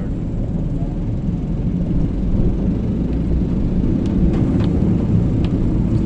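Steady low rumble of road and engine noise heard inside a moving car's cabin, with a few faint clicks between about four and five and a half seconds in.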